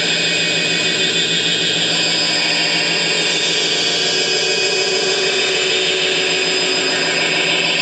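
Dense, steady electronic noise drone: many held tones layered over a bright hiss, with no beat or pauses, played live on tabletop electronics.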